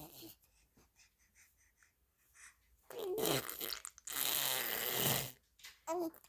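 Baby vocalising: a short falling whimper about three seconds in, then a long breathy blowing noise lasting just over a second, with brief little voice sounds at the start and end.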